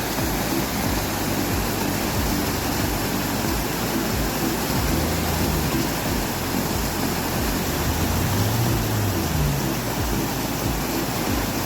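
Steady rushing of a river flowing below a bridge, with wind buffeting the microphone in irregular low rumbles.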